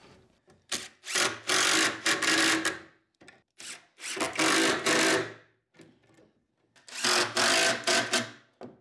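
Cordless drill driving pocket-hole screws into the carcass stretchers: three runs of a steady motor whine, each about one and a half to two seconds long, with short pauses and small clicks between them.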